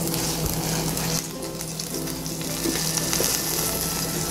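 Oil sizzling steadily in a clay pot as fresh fenugreek (methi) leaves are dropped in and stirred with a wooden spatula.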